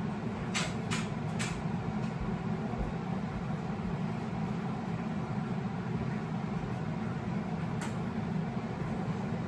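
A steady low hum, like a motor or fan running, with a few sharp clicks in the first second and a half and one more near the end.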